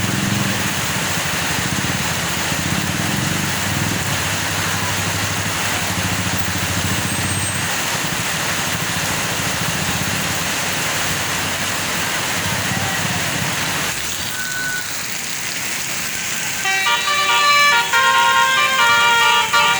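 Road traffic with a heavy vehicle's engine running, then near the end a bus's telolet basuri musical air horn starts playing a quick tune of short stepped notes, the loudest sound.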